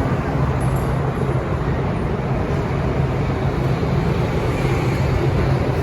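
Steady rush of wind and road noise on the microphone while riding a scooter, with a low steady hum underneath.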